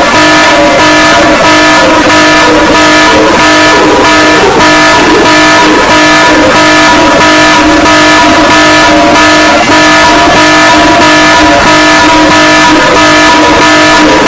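Loud, distorted emergency-alert-style alarm: several steady tones held together over a fast even pulse, about three beats a second, with a wavering sound underneath.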